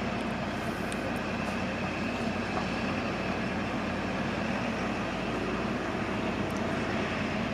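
Steady background rumble and hiss with a faint low hum, unchanging and without distinct events.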